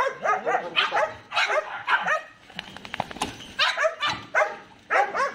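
Belgian Malinois giving repeated yips and whines with arching pitch, with a short run of light clicks about halfway through.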